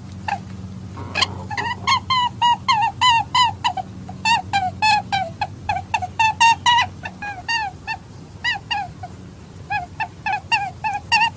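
Rabbit making a rapid run of short squeaky calls, about three to four a second, each dipping in pitch, with a brief lull about eight seconds in. A steady low hum sits underneath.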